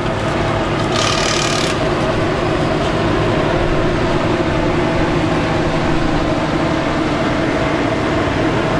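An engine running at a steady speed, with a short hiss about a second in.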